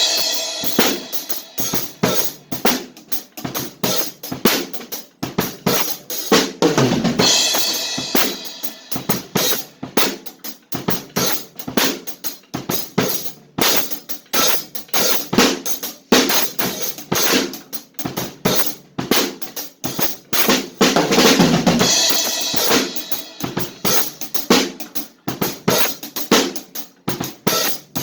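Drum kit played hard and fast: a dense run of snare and bass-drum hits, with cymbal crashes washing over it about seven seconds in and again about twenty-one seconds in.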